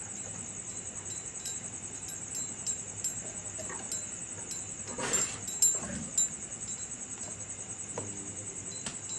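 Steady, rapidly pulsing high-pitched insect chirring, with a short animal call about five seconds in and a fainter one near the end.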